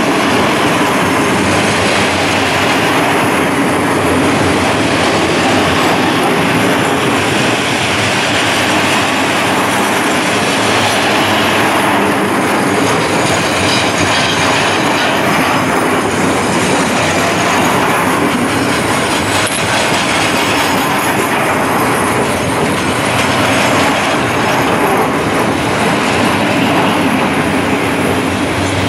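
Freight train of ECCO Box container wagons rolling past close by: the loud, steady noise of wagon wheels running over the rails.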